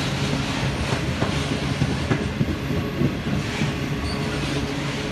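Grain hopper wagons of a wheat train rolling past on the rails: a steady rumble of wheels with irregular clicks and a faint high-pitched whine.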